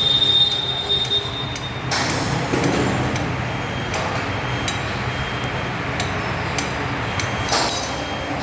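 Metal tools and engine parts clinking and clicking now and then over steady background noise. A high, steady whine cuts off about two seconds in.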